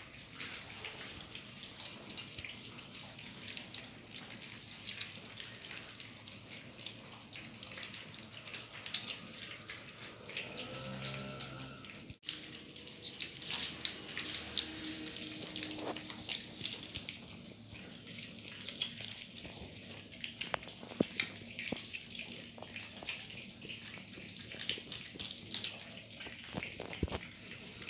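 A group of cats eating wet food together: a dense, steady patter of small wet chewing and licking clicks. About twelve seconds in there is one sharp click and a brief break.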